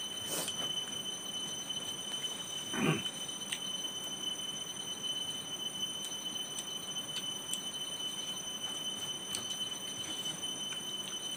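Quiet eating by hand from a metal plate, a few faint clicks, over a steady hiss with thin, high, steady ringing tones. One short pitched sound, like a brief vocal or animal call, comes about three seconds in.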